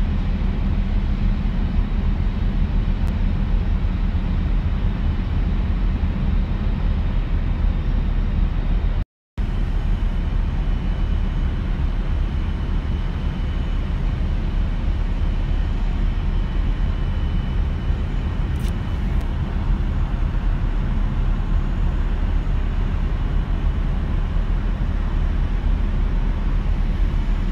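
Steady low rumbling noise of wind buffeting a phone microphone at the quay edge. The sound cuts out completely for a moment about nine seconds in.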